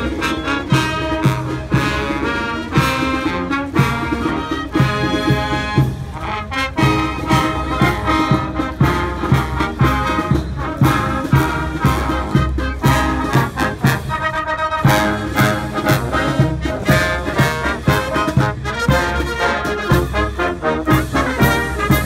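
Military brass marching band playing a tune on trumpets, saxophones and sousaphone, with a bass drum and cymbals keeping a steady beat.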